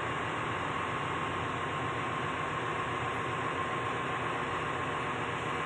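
Steady machinery noise of a ship's engine room: an even hiss and hum with a constant high whine running through it.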